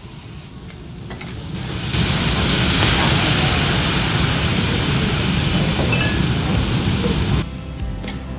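Lobster meat and tomalley frying on a hot teppanyaki iron griddle. About two seconds in, a loud hissing sizzle of steam swells up, then cuts off sharply near the end.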